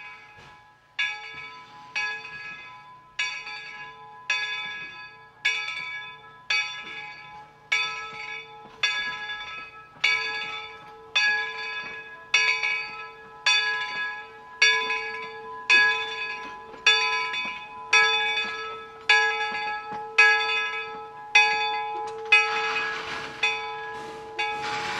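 Steam locomotive bell on NCRR No. 17 'York' ringing steadily as the engine moves, about one strike a second, each strike ringing on and fading. A rushing hiss rises near the end.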